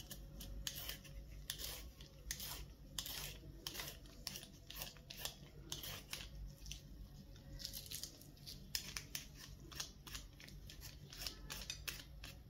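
Vegetable peeler scraping strips of skin off a raw carrot: a short rasp with each stroke, about two strokes a second.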